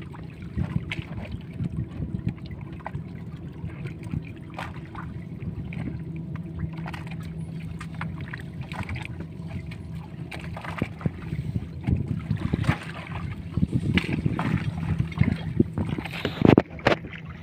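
The fishing boat's motor humming steadily while a wet gill net is hauled aboard by hand, with rustling, dripping and light knocks of net and floats against the hull, busier near the end.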